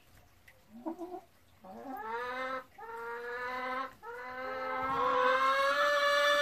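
Hen giving long, drawn-out moaning calls, typical of a hen settling in the nest box to lay. There is a short call about a second in, then three long calls; the last is the longest, rising slowly in pitch and growing louder.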